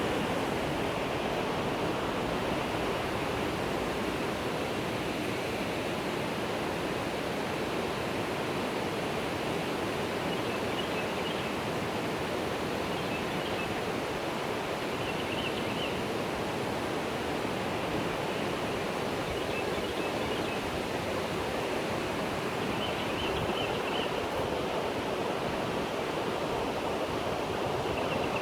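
Steady rushing water, like a stream or river flowing, with a few faint high chirps now and then.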